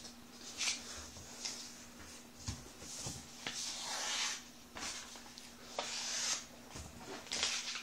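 A square sheet of white paper rustling and rubbing under the hands as it is folded along the diagonal and the crease is pressed flat: a series of short, irregular papery swishes.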